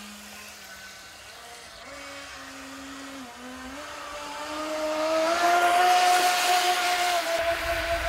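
Modified Tear-Into RC jet boat's 600-watt electric inrunner motor and jet drive whining, its pitch stepping up and down with the throttle, then climbing higher and louder from about halfway through as the throttle opens.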